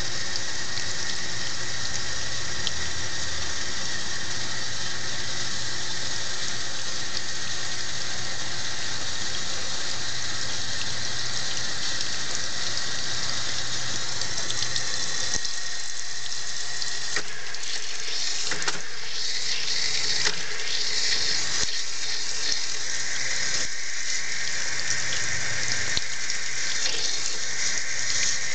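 Water running and splashing into the wash tub of a Toshiba twin-tub washer as it fills for the rinse. A low hum under it stops about halfway through.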